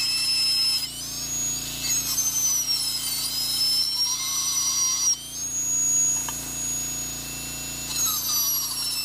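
High-speed straight-shaft dental drill (about 400,000 RPM) with a carbide bur engraving stainless steel, a high-pitched whine. Its pitch sags and recovers several times as the bur bites into the metal and eases off.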